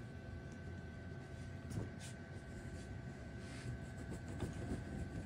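Faint rustling and a few light knocks as packaged fabric suits are handled, over quiet room tone with a steady faint high-pitched hum.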